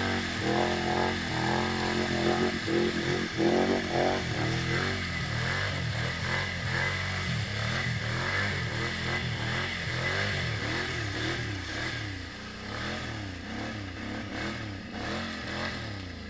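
ATV engine revving hard while churning through deep mud, its pitch swinging up and down with the throttle. After about five seconds the revs rise and fall repeatedly, easing to lighter throttle near the end.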